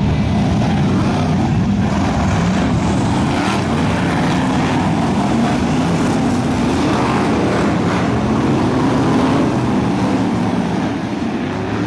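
Several BriSCA F1 stock cars' V8 engines running together in a pack, a loud steady din that eases a little near the end.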